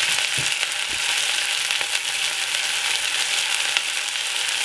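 Two pieces of marinated lamb pan-frying in a little oil in a small frying pan: a steady sizzling hiss, with two faint knocks within the first second.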